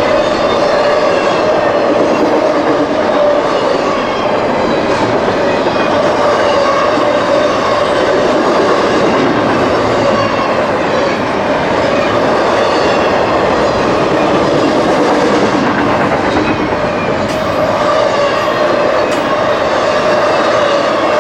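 Freight train cars rolling past at close range: a steady rumble with wheels clacking over rail joints, and a constant high ringing squeal from the wheels.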